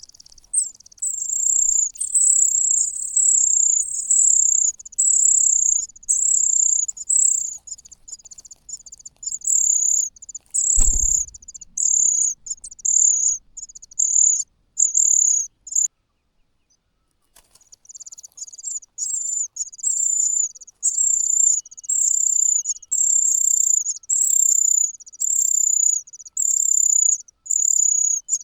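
Cuckoo chick begging with a string of very high, thin, chittering calls, about one a second, a hungry nestling crying for food. The calls stop for about two seconds midway, and a single low thump sounds about eleven seconds in.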